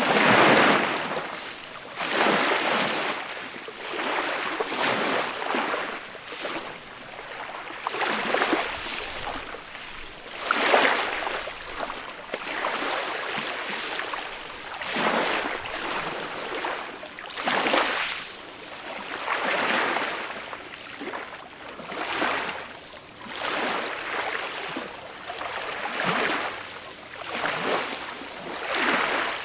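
Small, gentle sea waves breaking and washing up a beach, a new surge of wash every one to two seconds.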